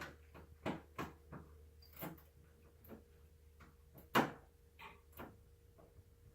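A few scattered knocks and clicks of things being handled, the loudest about four seconds in, over a faint steady hum.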